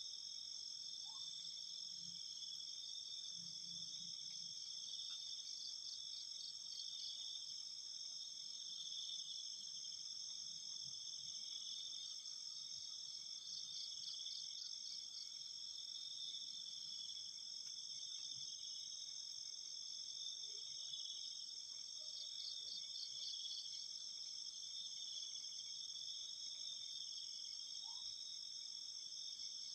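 Night chorus of crickets and other insects, several steady high-pitched trills layered together, with a pulsing insect call that fades in and out several times.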